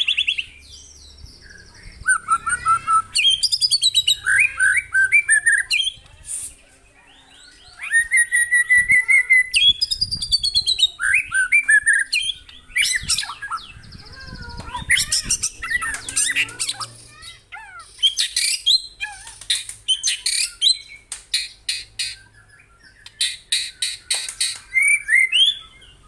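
White-rumped shama singing in phrases of varied whistles, gliding notes and fast trills, with rapid-fire runs of sharp repeated notes, broken by short pauses between phrases.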